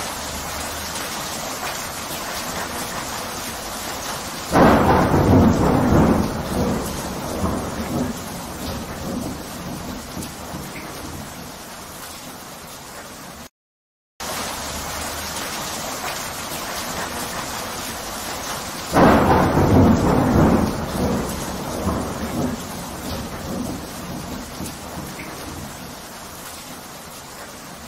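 Steady rain with a thunderclap about four seconds in that rumbles and fades away over several seconds. The same rain-and-thunder track cuts out briefly halfway and plays again, the thunder returning about 19 seconds in.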